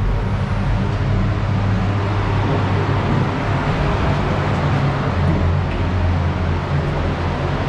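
A steady low hum under an even hiss, from a spray booth with its fans running while a spray gun lays on clear coat.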